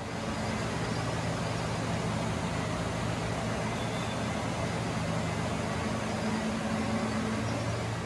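Steady industrial machinery noise: a continuous low hum under an even hiss, with no distinct knocks or voices.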